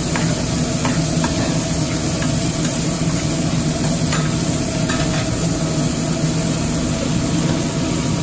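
Sliced onions and chopped sirloin patties sizzling in a stainless steel frying pan. A metal spatula clicks and scrapes against the pan a few times as the onions are stirred, over a steady low hum.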